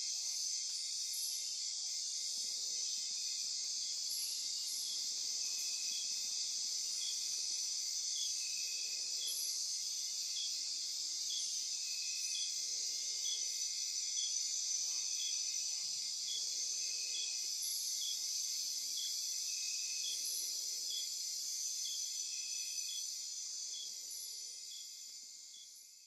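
Night-time rainforest insect chorus: a steady high-pitched shrill with regular repeated chirps layered over it. It fades out over the last few seconds.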